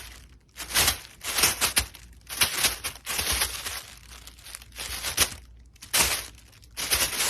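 Repeated bursts of crinkling and tearing, about eight rough rasps with short quieter gaps between them.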